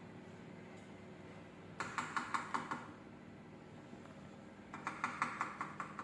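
A wire whisk knocking and scraping cake batter out of a plastic mixing bowl into a pan, in two bursts of quick clicks, about seven a second, each lasting about a second.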